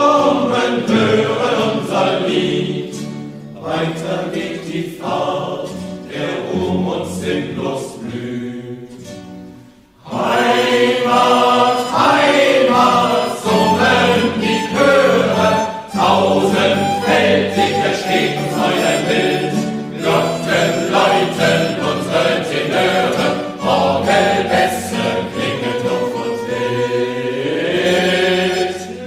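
Soundtrack music: a choir singing a song. It fades briefly about ten seconds in, then returns louder and fuller.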